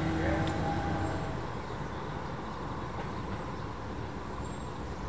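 Regional passenger train running and approaching: a low rumble with a few steady mechanical tones in the first second, easing into a steadier, slightly quieter rumble.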